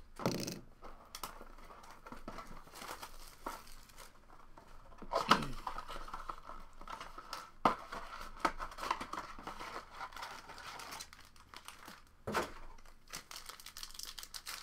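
Trading card blaster box being opened by hand and its packs handled: crinkling and tearing of plastic wrap and packaging, with a few sharp snaps, the loudest about five seconds in.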